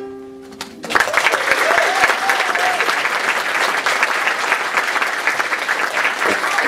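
The last ukulele chord of the song rings out and fades, then the audience breaks into loud applause about a second in.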